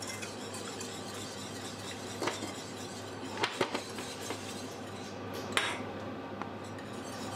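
Wire whisk stirring a thick cream sauce in a stainless steel saucepan, with a few sharp metal clinks against the pan over a steady hiss.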